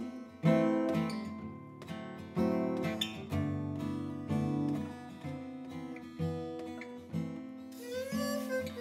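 Steel-string acoustic guitar playing an instrumental passage: chords and melody notes struck at a steady pace, each left ringing into the next.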